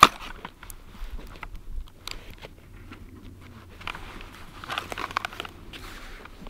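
Hands handling an underwater fishing camera's cable connector and aluminium carry case: a sharp click at the start, then scattered faint ticks and rustles, with a small cluster about five seconds in.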